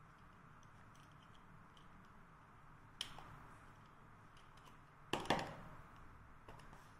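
Small sharp clicks from hand work with a craft cutter on a piece of vegetable: one click about three seconds in, then a louder quick cluster of clicks and knocks a little after five seconds, over a faint room hum.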